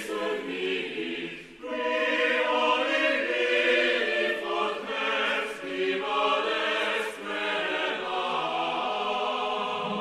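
A choir singing in Latin, with several voices holding long notes and a brief break about a second and a half in.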